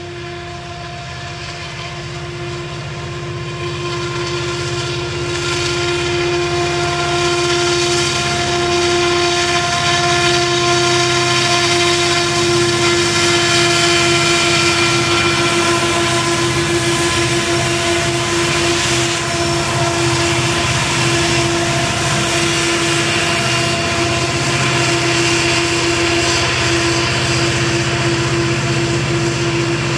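Helper diesel-electric locomotives working hard upgrade on a heavy coal train, passing close by: a deep throbbing engine drone under a steady whine, growing louder over the first several seconds and then holding.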